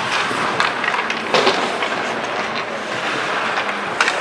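Ice hockey play: skate blades scraping and carving on the ice under a steady hiss, with sharp clacks of sticks and puck, the loudest about a second and a half in and another near the end.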